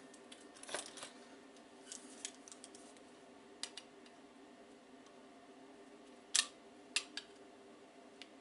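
Scattered small clicks and taps of hands working the plastic parts and new microswitch of an Amiga tank mouse, the loudest about two-thirds of the way through, over a faint steady hum.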